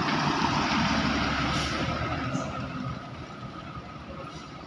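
A large road vehicle passing close by: engine and tyre noise that fades after about three seconds.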